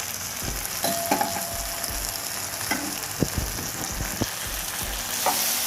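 Sliced onions sizzling in hot groundnut oil in a pan, stirred with a spatula: a steady frying hiss with a few short scrapes and knocks of the spatula against the pan and a brief squeak about a second in.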